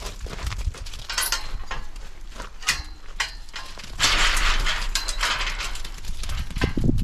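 Sheep hooves clattering and shuffling in a pen, with knocks from the metal hurdle gates. About four seconds in, a loud hiss lasting about a second: an aerosol marker spray being used to mark the hoggets.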